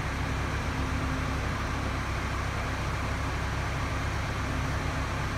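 Articulating boom lift running, a steady low rumble with a faint hum that comes and goes.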